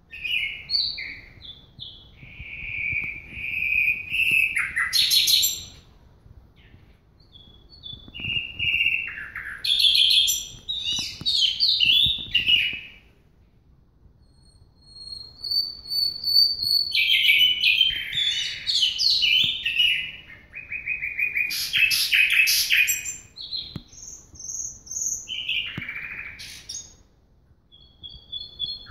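Oriental magpie-robin (magpie shama) singing: varied phrases of clear whistles, buzzy notes and rapid trills, with a pause of a second or two between bouts.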